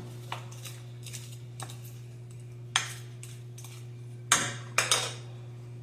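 Wooden spoon clacking and scraping against a pan while vegetables are stirred: a handful of separate knocks, the loudest about three seconds in and again around four and a half to five seconds, over a steady low hum.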